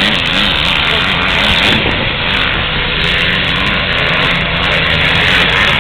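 A vehicle running steadily: a low engine hum under a loud, even rushing noise.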